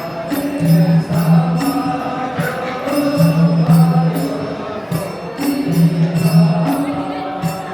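Traditional Gurung dance song: voices chanting a short melodic phrase over and over, with a steady beat of percussion strikes.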